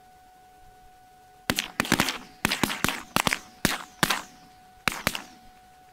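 Several shotguns firing a rapid, overlapping volley of about fifteen shots at ducks decoying in. The shooting starts about a second and a half in, comes thickest in the first two seconds, and tapers to a few last shots near the end.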